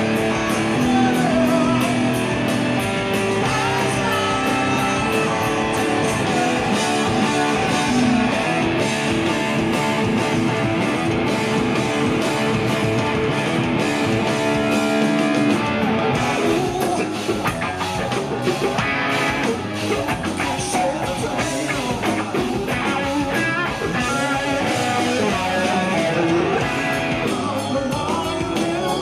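Live rock band playing loudly: electric guitar, bass and drums with a male lead singer. The drums grow busier about halfway through.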